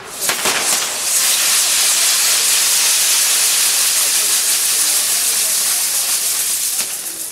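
Ground-firework pinwheels burning, their fire fountains (gerbs) spraying sparks. A few sharp cracks as they catch, then a loud, steady hiss for about six seconds that dies away just before the end.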